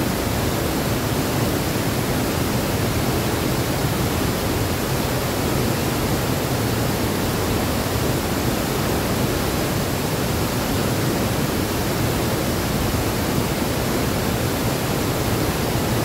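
Large waterfall in spate, heavy muddy floodwater pouring over the falls, making a steady, unbroken rushing sound.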